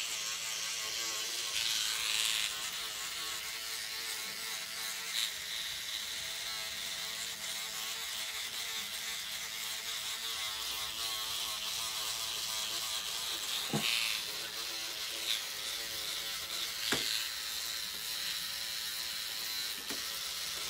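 Motorised microneedling pen (SkinPen) buzzing steadily as its needle cartridge is worked over the skin, punching micro-channels. A few short clicks come in the second half.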